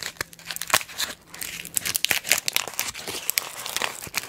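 Crinkly red plastic lollipop wrapper being pulled off and crumpled between the fingers close to the microphone, a dense, irregular crackling with a short lull partway through.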